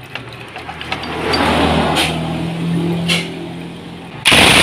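A motor vehicle engine running steadily in the background, with a couple of sharp metal clicks. Near the end a sudden loud rushing noise cuts in.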